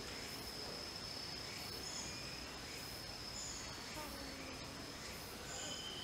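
Insects singing outdoors: a steady high trill, with shorter high chirps repeating every second or two over a faint, even background.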